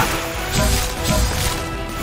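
Cartoon action music over a rushing water-jet sound effect as a robot fire truck's water cannon fires, with low impact thumps.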